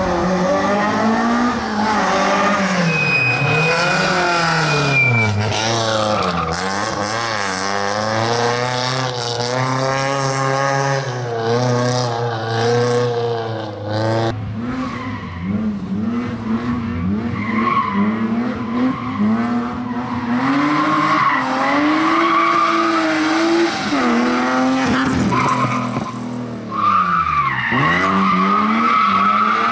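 Slalom competition cars driving a tight course, their engines revving up and falling back again and again between gates, with tyres squealing. About halfway the engine note changes abruptly to a second car, a rear-wheel-drive saloon spinning its rear tyres.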